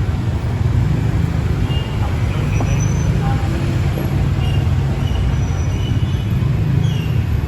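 Steady low rumble of heavy road traffic and vehicle engines, with a few faint short high-pitched tones now and then.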